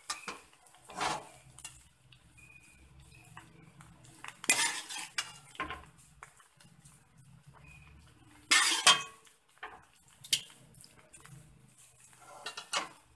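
A spoon clinking and scraping against a steel cooking pot as thick meat masala is spooned onto a layer of rice, in about five short bursts a few seconds apart.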